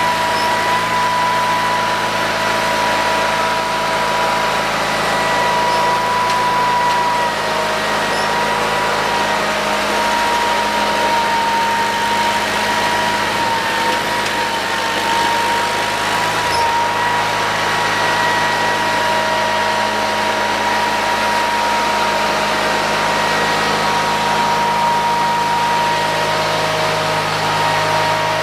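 Onan-powered Sears garden tractor engine running steadily, with a steady high whine above it.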